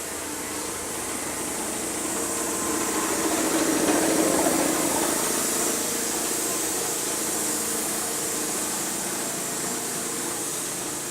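A motor-driven shop tool running steadily, a hum with a broad hiss, swelling louder about four seconds in and then easing back.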